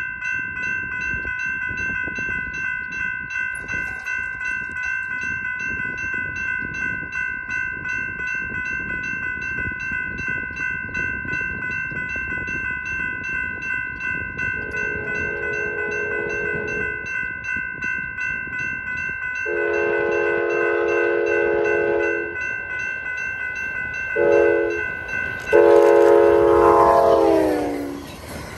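Railroad crossing bell starts suddenly and rings steadily at a quick beat. Then an approaching locomotive's horn sounds the grade-crossing signal: long, long, short, long. The last blast falls in pitch as the locomotive passes, and the rushing noise of the train follows near the end.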